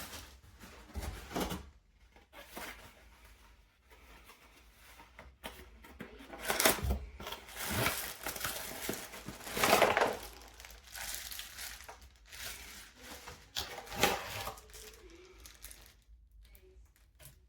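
Irregular crinkling and rustling handling noises, with louder bursts about seven and ten seconds in and a sharp knock near fourteen seconds.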